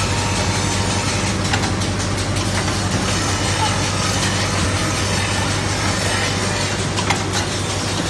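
Automatic melamine crockery grinding machine running: a steady low motor hum under a dense grinding and dust-extraction noise, with a few sharp clicks from the mechanism.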